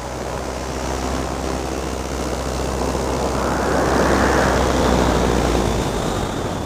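Paramotor's Fresh Breeze Simonini engine running steadily in flight under wind rush on the helmet microphone, then dying away near the end as the motor cuts out.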